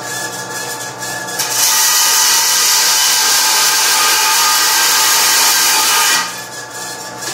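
Vertical band saw running, its blade cutting through a strip of 16-gauge sheet steel. The loud hiss of the cut starts about a second and a half in and stops about a second before the end, leaving the saw running on.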